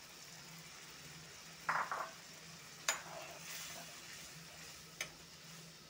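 Steel ladle stirring a thin, sizzling masala gravy in a kadai, with two sharp clinks of the ladle against the pan, about three seconds in and again near the end.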